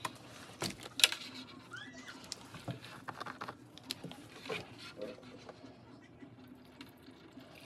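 Light handling noise: scattered clicks, knocks and rustles as tools and a plastic fuel jug are moved about on plastic sheeting, fading to quieter fumbling near the end.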